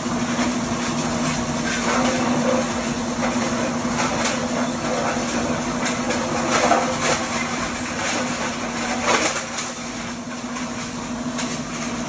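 Plastic grinder or shredder running with a steady hum while its belt conveyor feeds in plastic film, with irregular louder crunching and crackling about every two seconds as the material is cut up.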